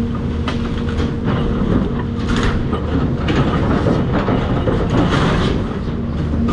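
Cat 336 excavator's diesel engine running steadily under load, with repeated cracking and clattering crashes of house debris being broken and moved.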